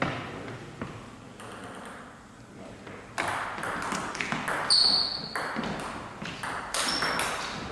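Table tennis rally: the ball knocking back and forth between paddles and table in quick succession from about three seconds in, echoing in the hall. A short high squeak cuts through twice in the middle of the rally.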